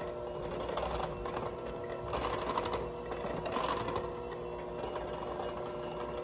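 Five-speed electric hand mixer running steadily at medium speed, its beaters whisking egg whites in a glass bowl, the whir swelling slightly about once a second.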